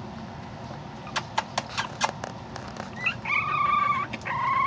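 Young bulldog puppy crying: two long, high, fairly steady whines in the second half, the second running on past the end. Before them comes a quick run of about eight clicks.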